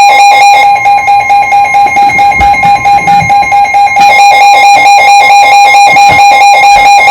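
Emergency alert alarm tone at the start of a severe thunderstorm warning: a loud, rapidly pulsing warble over a steady high tone.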